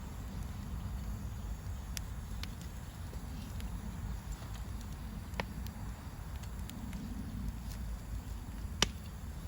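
Wood campfire crackling, a few sharp pops (the loudest near the end) over a steady low rumble.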